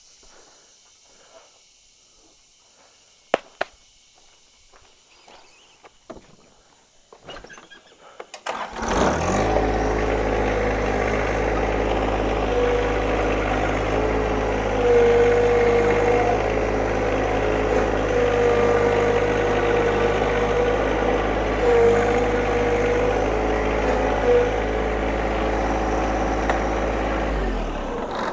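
Pressure washer starting about a third of the way in, running steadily for close to twenty seconds while washing down a fresh-sawn hickory slab, then stopping suddenly just before the end. Before it starts, two sharp knocks.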